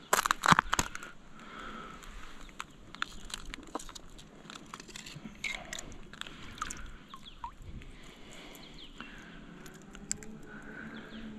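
Oyster shells clicking and crunching as a knife knocks and pries at wild oysters on a log. A close burst of sharp cracks comes in the first second, then scattered clicks.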